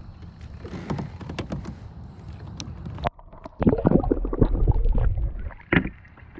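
Water splashing and sloshing as a small bass is lowered over the side of a kayak and let go. About three seconds in, the sound turns muffled and rumbling as the camera goes under the water with the fish, then clears near the end as it comes back up.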